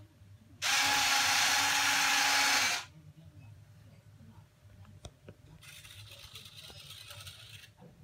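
Electric retractable landing gear of a Freewing F-15J RC jet model extending: a loud, steady motor whir that starts and stops abruptly after about two seconds. A second, fainter whir follows a few seconds later, with a few small clicks in between.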